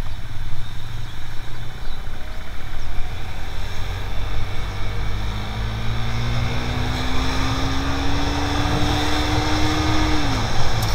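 Sport motorcycle's engine running as the bike rides along, its pitch rising slowly for several seconds as it accelerates, then dropping quickly near the end, over a steady low rumble. Wind rush on the microphone builds as speed increases.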